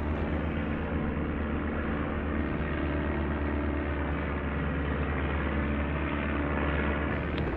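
De Havilland Tiger Moth biplanes flying overhead, the steady drone of their four-cylinder piston engines and propellers.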